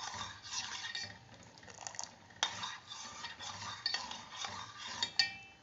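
Metal spoon stirring jelly into hot water in a stainless steel pot, dissolving it. The spoon scrapes and knocks against the pot's sides, with a sharp knock about two and a half seconds in and a loud ringing clink near the end.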